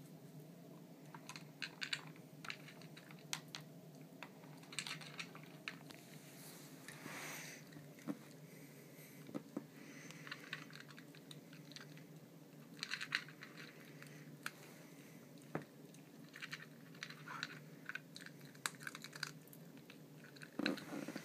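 A Papillon crunching dry kibble from a Nina Ottosson Dog Tornado plastic puzzle feeder. Irregular crunches and small clicks as it noses at the plastic compartments, with a longer scraping rustle about seven seconds in.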